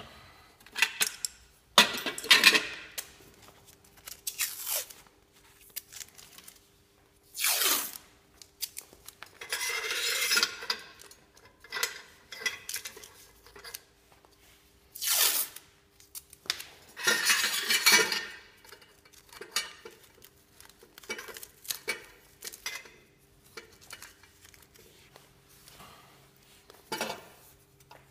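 Irregular metal clinks, clanks and scrapes as stainless-steel motorcycle exhaust header pipes and an adjustable wrench are handled, coming in separate bursts of a second or so.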